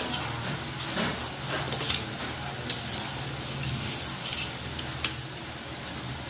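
Someone eating fried milkfish and rice with their hands: scattered soft clicks, taps and smacks of fingers working the fish and rice on a plate, with chewing, over a steady low hum.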